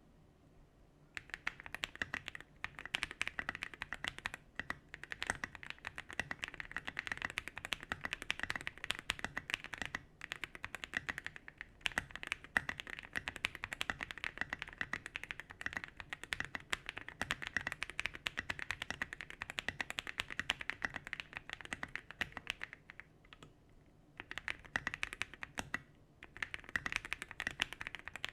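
Fast typing on a MonsGeek M1 mechanical keyboard with Smoothie switches and SA-profile keycaps: a dense run of keystroke clacks, broken by a few short pauses.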